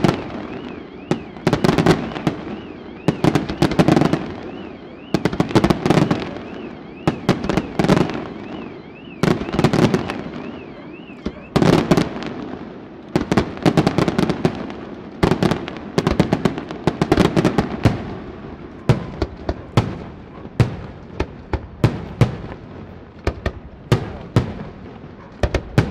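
Aerial firework shells bursting one after another in a display, each burst a deep boom with sharp cracks, about every one to two seconds. In the last third the reports come as quicker, separate sharp cracks.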